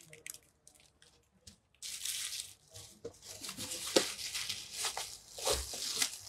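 Clear plastic wrapping crinkling and tearing as it is handled, starting about two seconds in and running in uneven bursts, with a few sharp clicks near the end.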